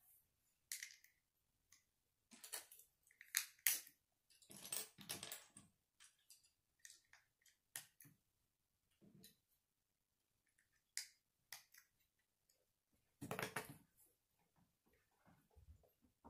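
Plastic Lego bricks being fitted together by hand: scattered small clicks and short scraping rustles, with the busiest stretch about four to five seconds in and another short burst near the end.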